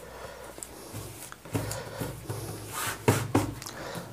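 Cloth rustling and sliding against a sewing table as it is handled and folded, in several short swishes that come mostly in the second half.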